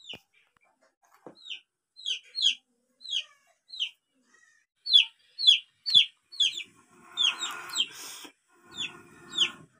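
A chicken peeping: a run of short, high calls falling in pitch, about two a second. Near the end, two longer rushing breaths are heard, from blowing into a small cooking fire.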